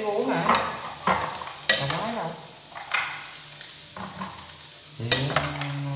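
Macaroni frying in oil in a pan, sizzling as a metal spoon stirs and scrapes it. A few sharp clinks of the spoon against the pan stand out, the loudest about two seconds in and about five seconds in.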